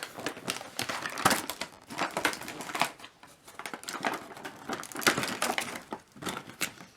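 Toy box packaging crackling and crinkling as it is pulled open by hand, in uneven crackles with short pauses.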